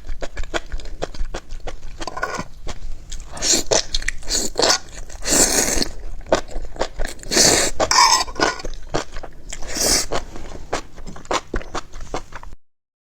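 Close-up eating sounds: someone biting and chewing crunchy food, with rapid sharp crunches and crackles. The sound cuts off suddenly near the end.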